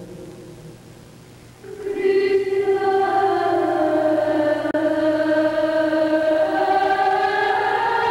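Wordless choral singing on a film soundtrack. After a quiet lull, voices come in about two seconds in with long held notes that slowly slide up and down in pitch.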